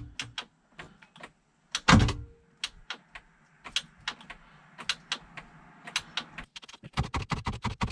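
Starter on a seized MerCruiser 7.4 V8 being bumped: two heavy clunks about two seconds apart, the second with a short hum, and the engine does not turn over. Scattered sharp clicks follow, coming faster near the end.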